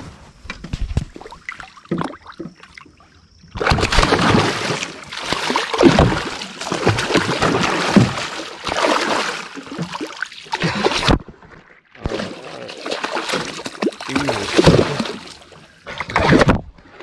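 A tarpon thrashing at the surface beside the boat, splashing and throwing water. The splashing starts about three and a half seconds in and runs in two long bouts with a short lull around eleven seconds.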